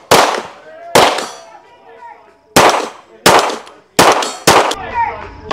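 Six gunshots fired one at a time at an uneven pace, some with a metallic ring after them.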